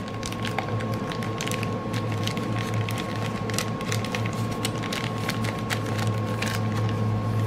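Diamond-painting tools and their plastic bag being handled and packed away: a run of irregular light clicks and crinkles over a steady low hum.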